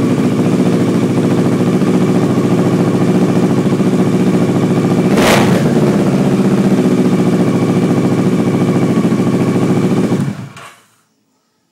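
2011 Kawasaki ER-6n's parallel-twin engine idling steadily through an aftermarket twin-outlet exhaust, with a short burst of noise about halfway through. A little before the end the engine sound dies away within about half a second.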